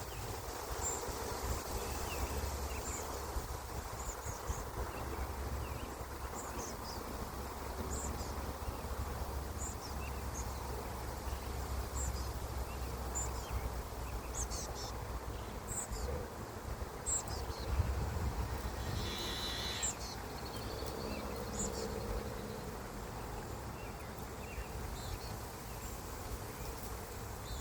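Strong wind buffeting the microphone as a steady low rumble, with scattered short high chirps and a brief pulsed trill about two-thirds of the way through.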